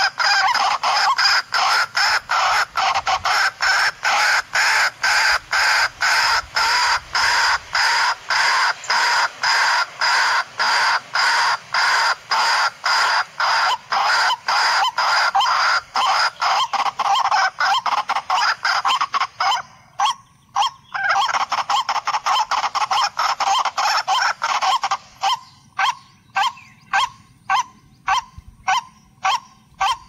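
White-breasted waterhen (kurowak) calling: a loud, fast series of repeated honking 'kur-wak' notes, about two a second. The series breaks off briefly about two-thirds of the way through, then resumes with the notes more spaced out.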